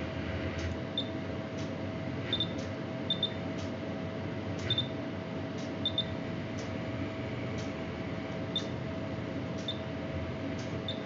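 Stäubli Puma 200 robot arm moving through its joints: its drives give a steady hum over a low rumble. About eight short, high clicks come at uneven intervals as it moves.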